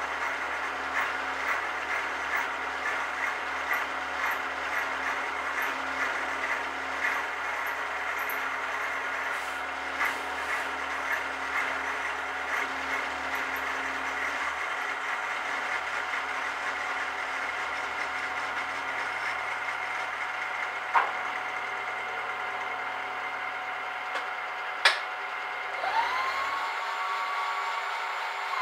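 Bench mill-drill running, its cutter machining metal with a regular light ticking, while an aerosol of cutting fluid is sprayed onto the cut. Two sharp clicks come near the end, and the machine's low hum stops shortly after.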